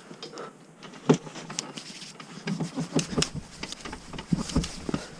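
Floor pump with a charge tank (tubeless inflator) being worked by hand: a run of short clicks, knocks and pump strokes that grows busier about halfway through. The tank is being charged to blast-seat a loose tubeless tyre bead.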